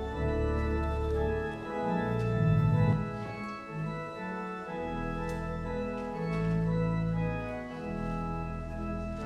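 Church organ playing a hymn in full, held chords, with the bass notes changing every second or so.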